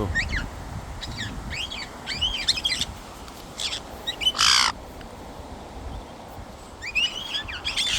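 Pet parrots chattering in short chirping calls, with one loud harsh squawk about halfway through. Wind rumbles on the microphone underneath.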